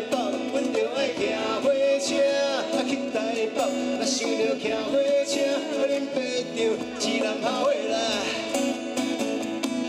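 A man singing to his own acoustic guitar, strummed and picked, in a live acoustic performance.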